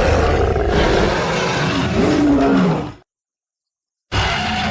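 Monster roar sound effect for a giant prehistoric ape, a growling roar with falling tones that fades out about three seconds in; after a second of silence a second roar begins.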